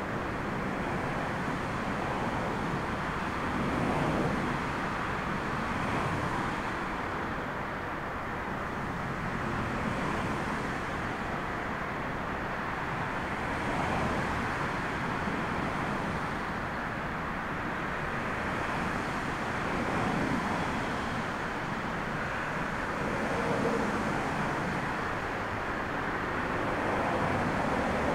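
Steady rushing roar of a jet airliner's engines on the runway mixed with gusting wind on the microphone, swelling and easing every few seconds.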